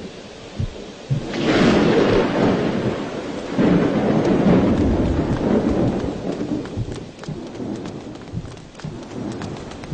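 Thunderstorm: two loud rolls of thunder, the first breaking about a second in and the second a couple of seconds later, each rumbling away over steady rain with scattered drips.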